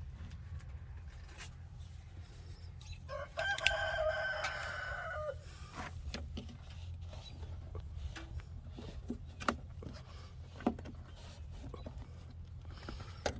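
A rooster crows once, about three seconds in, a single drawn-out call of a couple of seconds. Under it is a steady low hum, with scattered light clicks and taps.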